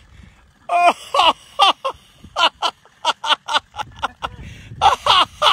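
A person laughing hard in clusters of short, high-pitched, breathless bursts, several a second, with a few pauses between them.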